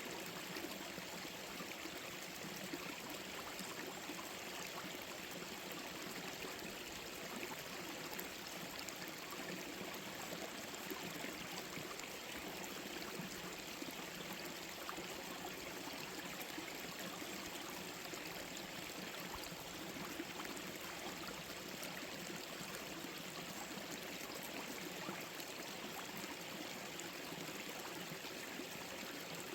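Forest stream flowing over rocks: a steady rush of water with small splashes and gurgles.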